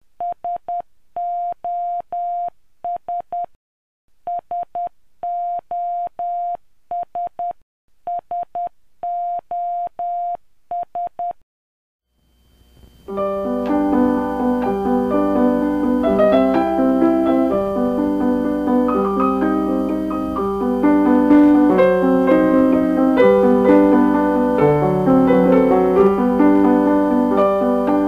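Morse code beeping: a single-pitch electronic tone keyed in short and long pulses for about eleven seconds. About twelve seconds in, piano music starts and continues.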